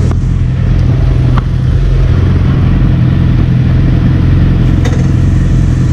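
Motorcycle engine idling steadily close by, with two faint clicks about a second and a half in and near the end.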